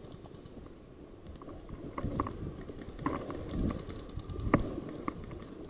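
Rustling and footfalls of a player moving with gear, with a few sharp clicks or knocks spread through the last few seconds, the loudest late on.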